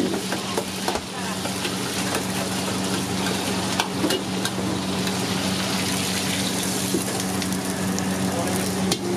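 Chicken pieces with ginger and spring onion deep-frying in a wok of hot oil, a steady sizzle, with a metal ladle stirring and clicking against the wok. A steady low hum runs underneath.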